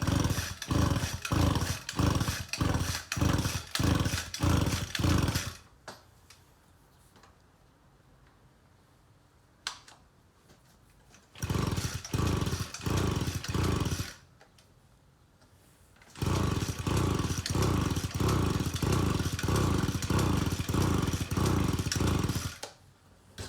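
Pull-starter on a flood-soaked Mitsubishi TUE26 two-stroke trimmer engine being yanked again and again with the spark plug out, the engine turning over in quick rhythmic strokes to push water from the cylinder. Three spells of pulling, with two quiet pauses between them.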